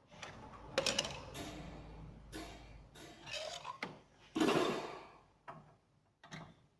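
Irregular clattering, knocking and scraping of hard parts being handled, in a run of separate bursts with the loudest about four and a half seconds in: tools and panels being worked on during disassembly of a refrigerator.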